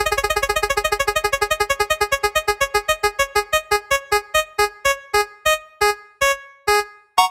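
Spinning prize-wheel sound effect: a quick run of short, pitched, keyboard-like ticks that slows steadily as the wheel winds down, ending in a few widely spaced ticks. A louder chime starts right at the end as the wheel stops.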